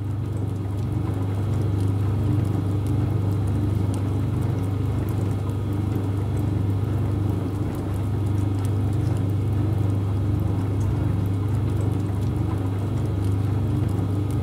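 A steady, low mechanical hum from running machinery, holding an even pitch throughout.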